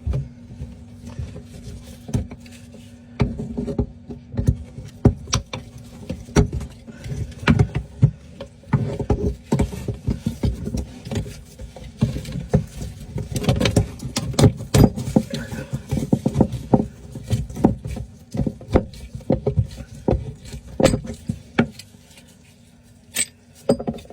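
Irregular metallic clicks and knocks of a ferrule puller being worked on a copper pipe to pull off the compression ferrule and nut, over a steady low hum. The clicks come thickest in the middle and thin out near the end.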